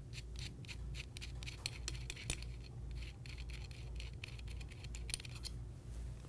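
A 10 mm Allen wrench unscrewing the threaded inner sleeve that locks the FX Crown air rifle's barrel liner. It makes faint, irregular metallic clicks and scratches, which thin out after about three seconds.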